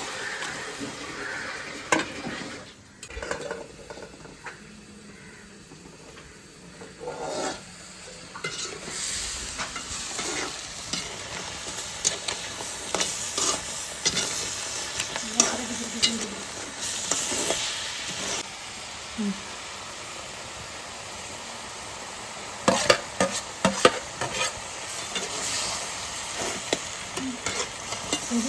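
Food frying in oil in a pan, sizzling, while a spoon stirs it with repeated scrapes and knocks against the pan. It dies down for a few seconds soon after the start.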